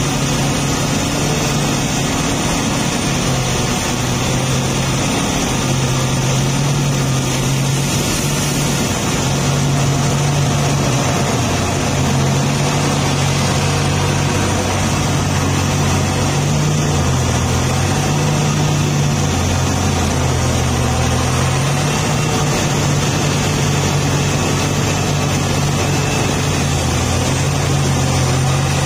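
Liebherr R984C hydraulic mining excavator's diesel engine running under working load, a low drone whose pitch steps up and down every few seconds as the load changes.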